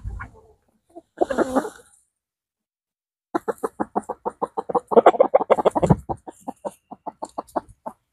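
Hens clucking in a quick run of short clucks, about five a second, while pecking at a heap of tomato hornworms, after a single short call about a second in.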